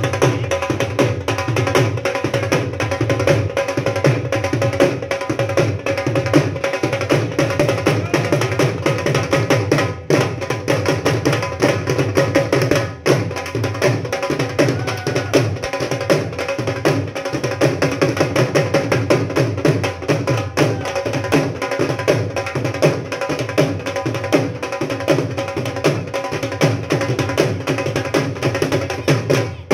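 Three dhol drums beaten together with sticks in a fast, driving rhythm: dense, unbroken drumming.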